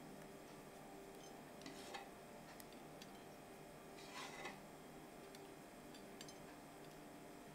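Near silence: faint room tone with a steady low hum and a few faint, scattered ticks, the most noticeable a small cluster of light ticks about four seconds in.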